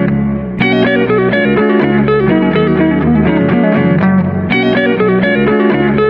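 Background music led by guitar: a steady run of plucked notes, with a new phrase starting on a fresh attack just over half a second in.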